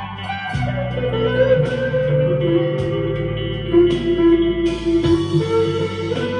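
Harley Benton CST-24 electric guitar played through a Vox AV15 amp on its crunch channel with reverb, delay and chorus: a slow line of held, ringing notes over sustained low notes.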